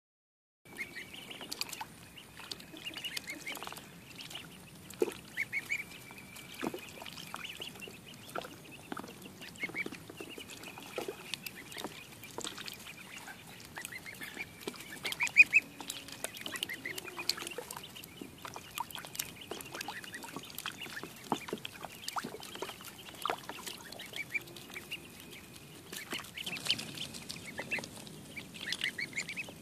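A group of ducklings peeping constantly in short, high, rapid notes, with water splashing and dabbling as they drink and paddle in a shallow tub.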